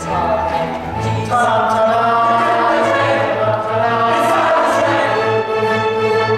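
A chorus singing in harmony with instrumental accompaniment, growing louder about a second in.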